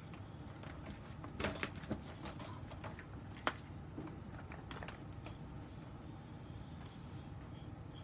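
Steady low room hum with a scatter of light clicks and knocks in the first few seconds, the sharpest about three and a half seconds in.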